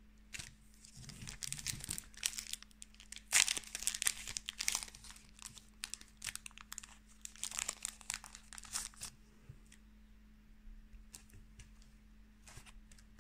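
Foil wrapper of a Pokémon booster pack crinkled and torn open, a run of crackling bursts over several seconds. Near the end, only a few faint clicks.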